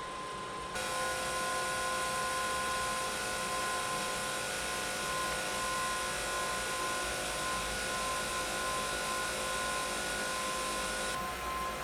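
A small electric fan running steadily: a whirring hiss with a high steady tone. It gets louder and brighter about a second in and drops back near the end.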